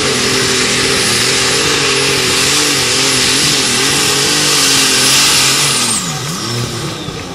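International light super stock pulling tractor's turbocharged engine at full throttle under load as it drags the sled, its pitch wavering. About six seconds in the engine is let off: the level drops, the pitch dips and a high turbo whine winds down.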